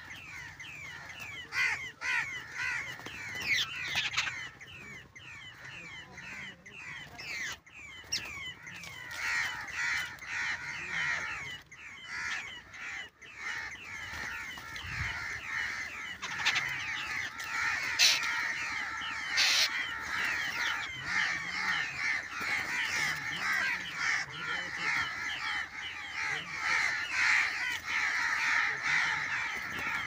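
A flock of babblers giving harsh, chattering calls, many quick notes overlapping, growing denser and louder after about eight seconds.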